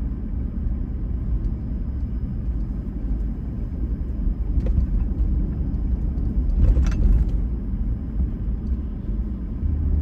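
Steady low road and engine rumble heard inside the cab of a 2019 Ford F-250 Super Duty pickup while driving. There is a short louder burst of noise about seven seconds in.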